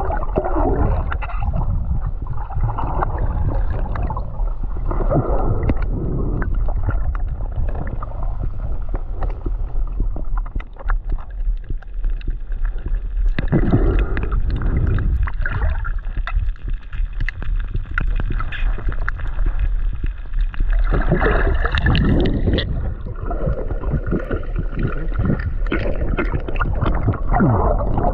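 Muffled underwater sound picked up by a submerged camera: a steady low rumble with swelling, gurgling surges of water as a freediver swims, and many small clicks.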